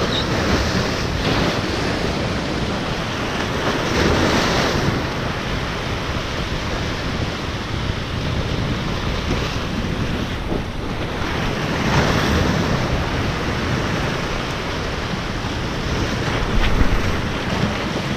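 Ocean surf breaking and washing over rocks in a steady rush, swelling louder a few times as bigger waves come in, with wind buffeting the microphone.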